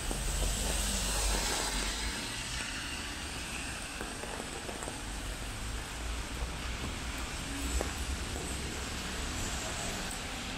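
Rainy street ambience: a steady hiss of rain and car tyres on a wet road, with a low traffic rumble that is strongest in the first couple of seconds.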